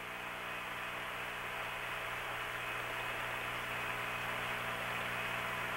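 Steady hiss and hum of an open air-to-ground radio voice channel between transmissions, band-limited like a radio link.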